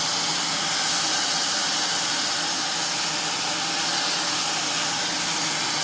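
Fentgo ionic hair dryer with its diffuser attached, running steadily on the cool setting: an even, hissing rush of air.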